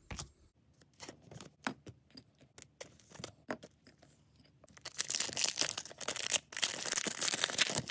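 Trading cards tapping and clicking as they are handled and set down, then, about five seconds in, a Disney Lorcana booster pack's foil wrapper torn open with nearly three seconds of crackling, crinkling rip.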